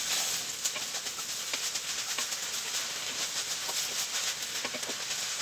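Sliced onions and shallots sizzling in butter and oil in an enameled cast-iron pot, with many small crackling ticks and the stirring of a wooden spoon through them, early in caramelizing.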